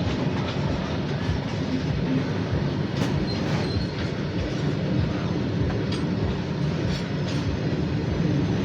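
Long freight train rolling past slowly on a curve: a steady rumble with irregular clicks of wheels over rail joints and a brief faint wheel squeal about three seconds in.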